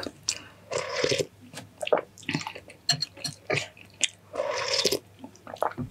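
Close-up wet eating sounds from a bowl of La Paz batchoy noodle soup: chewing with many small mouth clicks, and two longer slurps, about a second in and again near the end.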